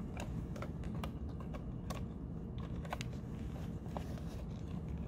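Light, irregular clicks and taps of an M50 protective mask's rubber and plastic parts being handled and turned over, over a steady low room hum.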